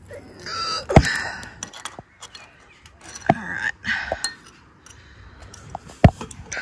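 Sharp metal clinks of a steel adjustable wrench knocking against a dynabolt anchor as it is tightened into a brick wall: three clanks, about a second in, just past three seconds and near the end, with light scraping between.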